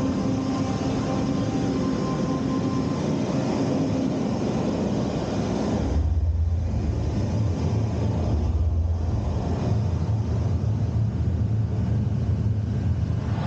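Cinematic sound-design soundtrack: a steady, loud hum with a few held tones that changes about six seconds in to a deep, heavy rumble.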